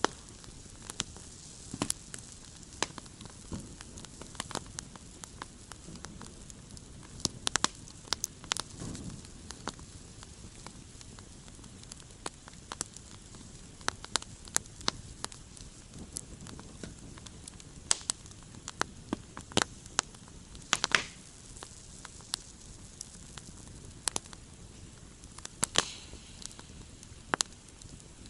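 Campfire crackling: irregular sharp pops and snaps over a steady low hiss, a few pops louder than the rest.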